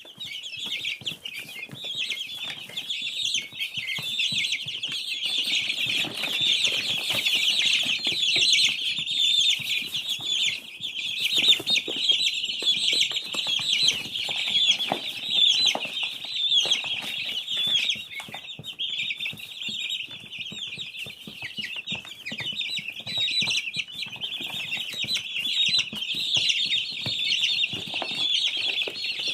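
A brood of baby chicks peeping continuously, many high, short cheeps overlapping, with light scratching and shuffling underneath.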